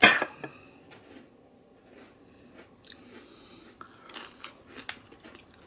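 Crunchy bites and chewing of a tuna taco. A loud crisp crunch comes right at the start, then quieter chewing, with a few more crunchy bites about four to five seconds in.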